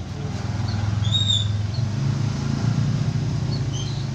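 A motor vehicle engine running close by, growing louder about a second in and holding, with a few short, high bird chirps over it.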